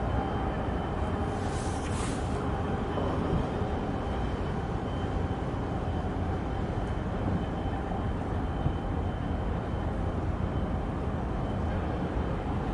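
Harbour ambience: a steady low rumble with a faint high whine running through it, and a brief hiss about two seconds in.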